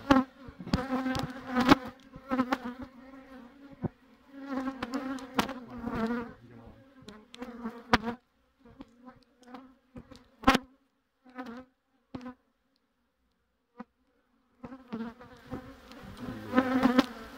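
Honeybees buzzing around an opened hive whose frames are covered in bees. The buzzing comes and goes and drops away for a couple of seconds past the middle. Several sharp knocks are heard, the loudest about ten and a half seconds in.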